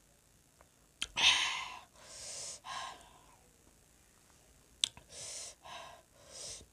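A woman's breathy sighs and exhalations after a drink, in two runs of about three breaths each, the first and loudest about a second in. Each run starts with a sharp mouth click.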